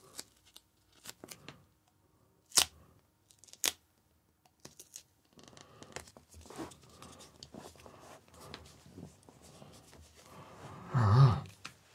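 Adhesive tape being handled on a battery: two sharp snaps about a second apart and scattered small clicks, then a few seconds of crinkling and rubbing as the tape is smoothed down. A brief murmur of voice comes near the end.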